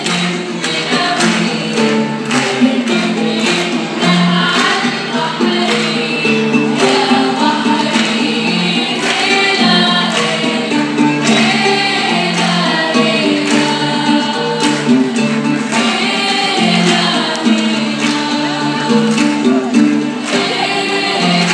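A group of young women singing a song together into microphones, accompanied by an oud, with a steady beat running under the singing.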